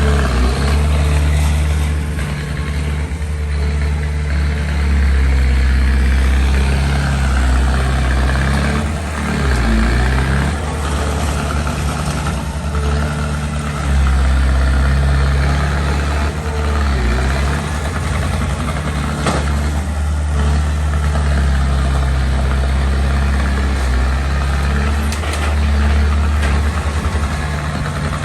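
Small bulldozer's diesel engine running steadily under load as it pushes sand, its pitch sagging briefly twice.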